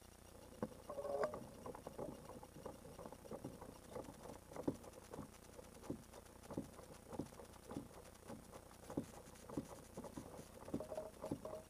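Small wavelets lapping and slapping against the plastic hull of a Hobie Revo kayak: a faint, irregular patter of light taps, two or three a second.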